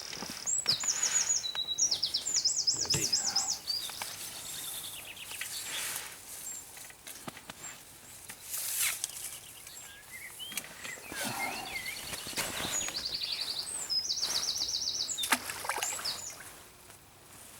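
A songbird singing: repeated rapid, high trilled phrases with chirps between them, over a steady outdoor hiss, with a few short noises.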